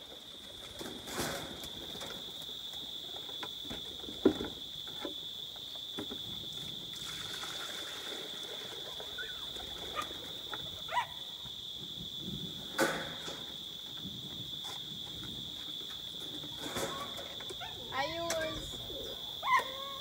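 Insects droning steadily on one high note, with occasional knocks and rustles as containers are handled in a pigeon pen; the loudest knock comes about four seconds in.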